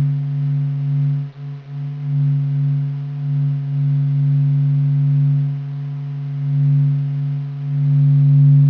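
Solar sonification, the Sun's data turned into sound: a steady, deep droning hum made of one low tone and its overtones. It swells and fades slowly in loudness and briefly dips twice about a second and a half in.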